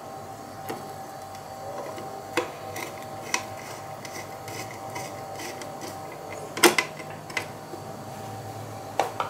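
A small screwdriver and screws clicking and tapping against a graphics card, with a few sharp clicks and the loudest about six and a half seconds in, over a steady faint hum.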